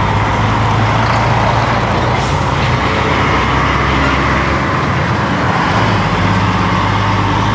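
Highway traffic noise: heavy trucks running close by, with a steady low engine drone under a constant wash of road noise.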